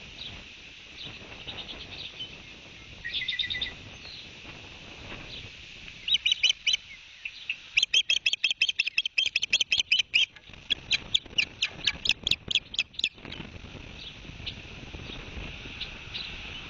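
Ospreys calling: a short burst of sharp chirps, then a long rapid run of piercing chirps, about six or seven a second, that stops suddenly. Fainter scattered chirps and a steady high hiss continue underneath.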